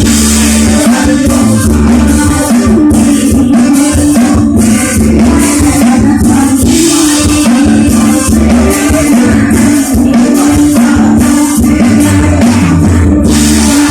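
Loud music over a PA system, with a woman singing over a steady bass line and rattling high percussion.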